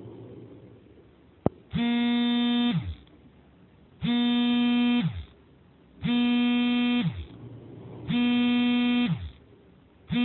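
Electric warning buzzer sounding in harsh one-second blasts about every two seconds, four times, after a single click.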